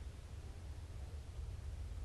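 Steady low rumble with a faint hiss, and no distinct call, knock or other event: background noise of a night recording.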